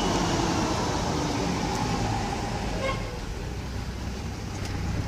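Ford F-250 pickup's six-cylinder engine and exhaust rumbling deeply while driving. It eases off about three seconds in and builds again near the end.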